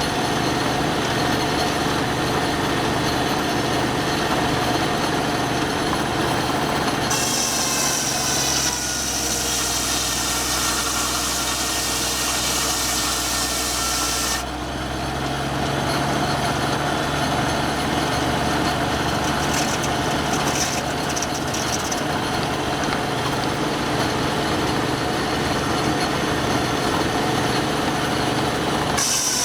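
A sawmill runs steadily with its saw spinning. About seven seconds in, a high whine starts and drops in pitch as the blade takes a cut through wood. It stops abruptly about seven seconds later, and another cut starts near the end.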